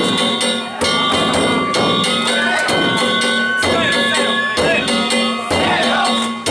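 Danjiri festival music (narimono): taiko drums and small hand-struck gongs beaten in a fast, steady rhythm, with a bamboo flute melody over them.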